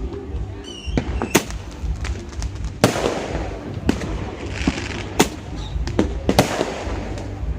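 Fireworks going off: about six sharp bangs a second or so apart, the loudest near the middle, with crackling between them. A short whistle comes just before the first bang.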